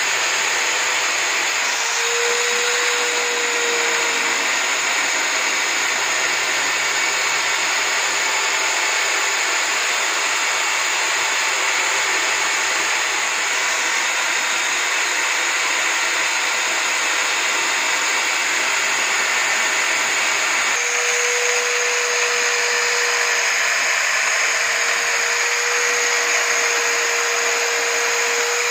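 Electric drill clamped upright in a drill stand and used as a homemade spindle sander, its motor running steadily while a sanding drum in the chuck smooths the edges of a cut board piece. A steady tone comes in about two-thirds of the way through.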